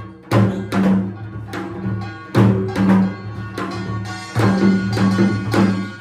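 Korean pungmul percussion music: loud drum strokes in an uneven rhythm, several a second, each with a ringing tail.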